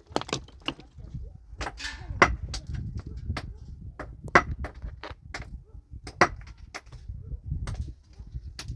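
An irregular series of sharp knocks, about two to three a second, the strokes of hand work such as chopping or hammering.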